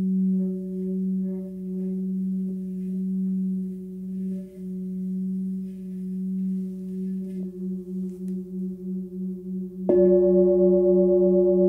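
Large forged Tibetan singing bowl sung by a stick rubbed around its rim, holding a steady low hum near its 180 Hz F/F-sharp note with higher overtones. The tone begins to throb, at about four pulses a second, after several seconds. About ten seconds in, a sudden strike sets it ringing louder and brighter.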